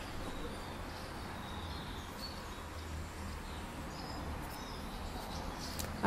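Outdoor ambience: a steady low hum under faint, short bird chirps now and then.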